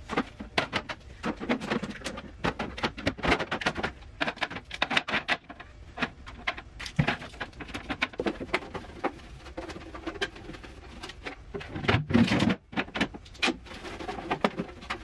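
Clear acrylic fridge drawers being handled and set onto glass fridge shelves: a steady run of irregular light plastic clicks, taps and clatters, with crinkling of plastic wrapping.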